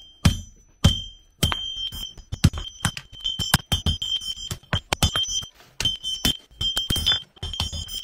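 Blacksmith's hand hammer striking a red-hot horseshoe on an anvil while forging a front shoe: two spaced blows, then from about a second and a half in a fast run of strikes, each leaving the anvil's high ring.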